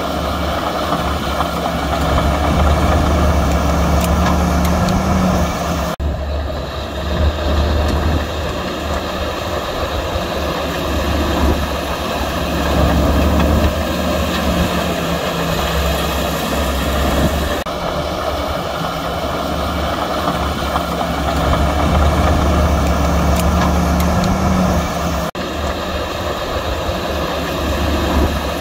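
Heavy diesel earthmoving machinery running: a steady low engine drone with a higher whine that rises briefly now and then. The sound changes abruptly three times.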